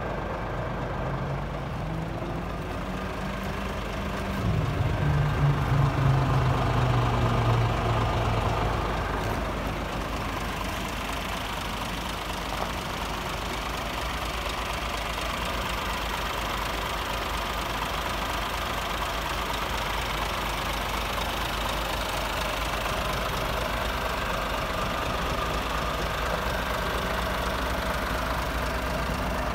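Scania R450 truck's 13-litre straight-six diesel idling steadily. A deeper hum swells for several seconds near the start, loudest around five to eight seconds in, then fades.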